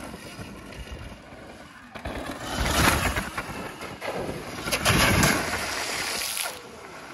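Electric dirt bike's wheels splashing through shallow water over rock, in two loud spells of spray starting about two seconds and about four seconds in.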